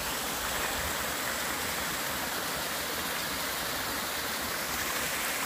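Small brook spilling over little cascades: a steady rush of running water.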